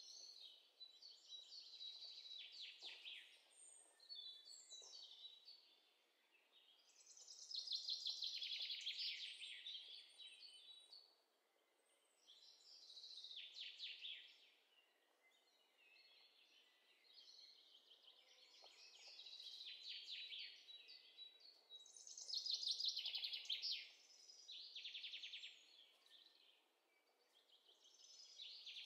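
Recorded songbirds chirping, in repeated bursts of quick chirps and rapid trills every few seconds, with quieter gaps between.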